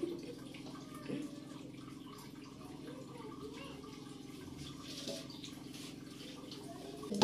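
Thin stream of water poured from a plastic mug over a wet cat, trickling and splashing onto a tiled floor, with a steady low hum underneath.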